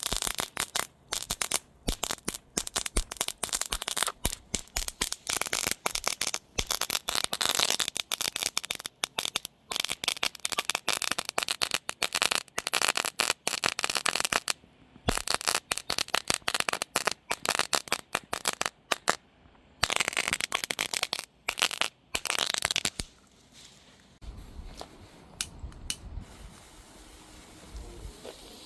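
Novelty slider fireworks sizzling and crackling as they burn, a dense irregular crackle like bacon frying, broken by short pauses. It dies away about 23 seconds in, leaving only a low rumble.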